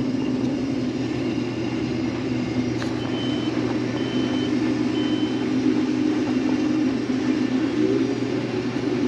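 Case 2366 combine running steadily while harvesting soybeans, heard from inside the cab as a constant drone. About three seconds in, three short high beeps sound about a second apart.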